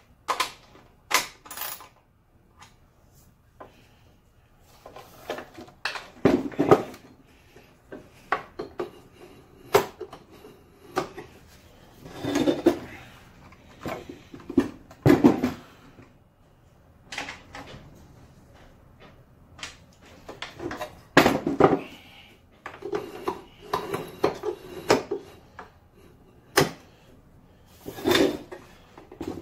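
Delta 10-inch compound miter saw being moved by hand with its motor off: the head is tilted for a bevel and swung down, and its pivots, locks and stops give irregular metallic clicks, clunks and short rattles every second or few.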